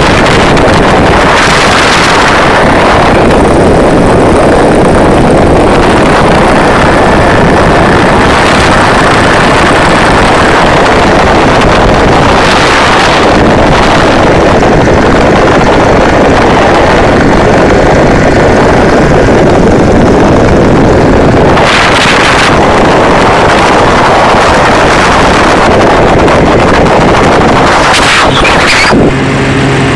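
Heavy wind rushing over the microphone of an open-cockpit ultralight aircraft in flight, mixed with the engine's noise, surging louder a few times. Near the end the wind noise drops away and a steady engine drone with a clear pitch comes through.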